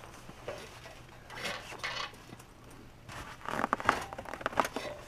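Handling noises: a brief hiss and scattered clicks and scrapes, getting busier about three and a half seconds in.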